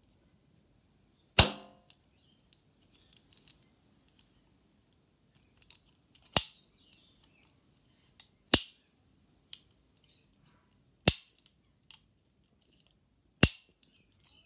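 Toy cap gun revolver firing plastic ring caps: five sharp, loud cracks a few seconds apart, with light clicks of the hammer and cylinder between shots.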